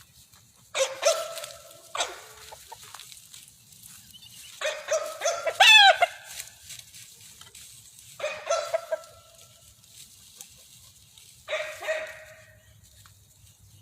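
Farmyard animals calling, a rooster crowing among them, in four bouts a few seconds apart, the loudest near the middle.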